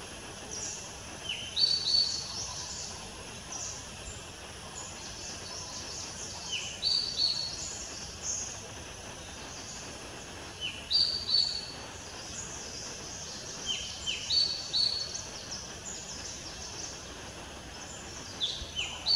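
Wild birds calling: clusters of short, high chirps that drop in pitch come every few seconds, over a steady faint high hiss.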